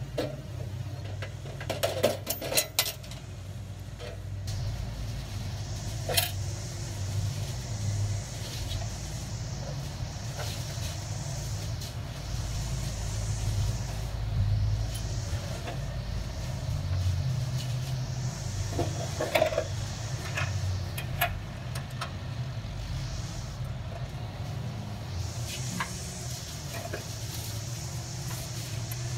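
Hand tools clicking and clinking against a metal electrical meter base, in a quick cluster about two seconds in, once near six seconds and again in a cluster around twenty seconds in, over a steady low drone.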